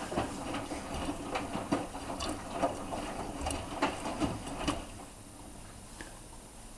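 Miele washing machine drum turning with a full wet load of cottons, the laundry tumbling with irregular knocks and swishes, then stopping about five seconds in as the drum pauses between turns.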